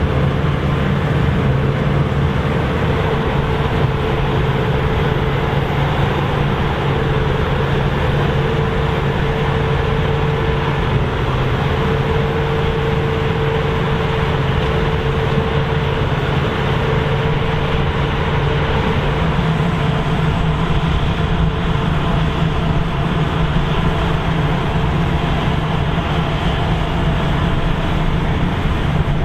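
Claas Lexion 770 combine harvester running steadily while harvesting grass seed: a constant engine and threshing drone with a steady low hum and a higher whine, no change in level.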